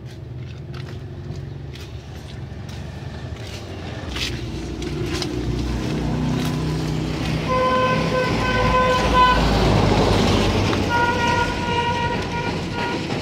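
A bus engine running and growing louder from about four seconds in, with a vehicle horn sounding in two runs of short, rapid toots during the second half.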